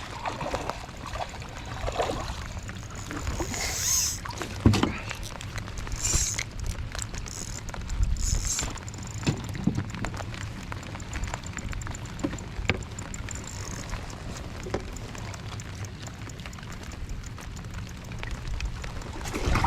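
Water splashing and sloshing against a kayak as a hooked bass is fought and brought aboard, with knocks of gear against the hull; a sharp knock a little over four seconds in is the loudest, and a run of fine rapid ticks comes near the middle.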